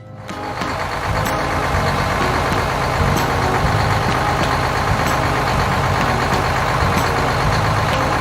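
Heavy vehicle engine running steadily, fading in over the first second.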